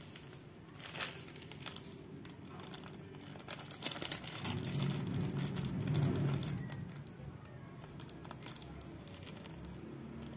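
Thin clear plastic sheet crinkling and rustling as it is handled and drawn against a sharp golok blade, with a sharp click about a second in. A low rumble swells through the middle and fades after about seven seconds.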